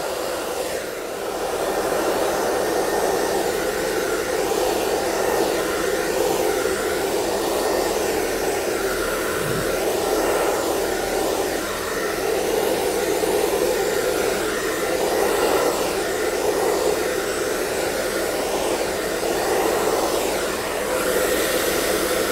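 Handheld hair dryer blowing steadily, its air aimed down onto a wet canvas to push the acrylic paint across it in a Dutch pour; the rush swells slightly now and then as it is moved.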